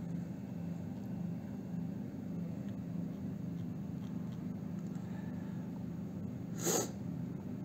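Steady low hum of room tone, with one short hiss near the end.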